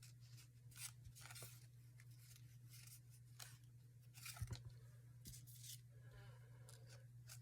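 Faint paper handling: scattered short rustles and scrapes of paper being moved, the loudest about four and a half seconds in, over a faint steady low hum.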